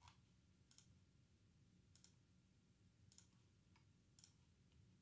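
Near silence broken by about six faint computer mouse clicks, spaced roughly a second apart, over a low steady room hum.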